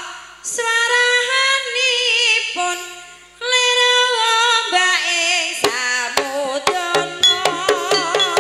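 Jaranan gamelan music: a high, wavering melody in long held notes, then about five and a half seconds in sharp drum strikes and low gong tones join in.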